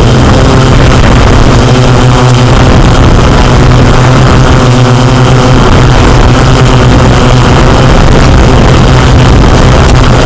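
Multirotor drone's propellers and motors buzzing steadily and loudly, a strong low hum over a wide hiss.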